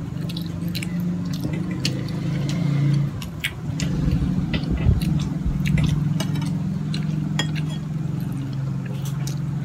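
Eating at the table: scattered clicks of a metal spoon against a ceramic bowl and plate, with chewing mouth sounds, over a low steady hum.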